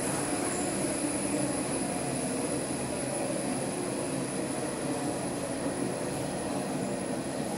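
Driverless Copenhagen Metro train running between stations, heard from inside the car: a steady rumble and hum of traction motors and wheels on the track.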